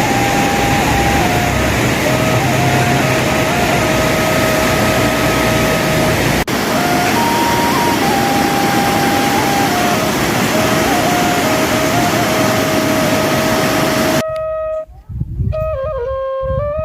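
Background music: a solo flute playing a slow, stepping melody over a loud, steady rushing noise. The rushing noise cuts off suddenly near the end, leaving the flute alone.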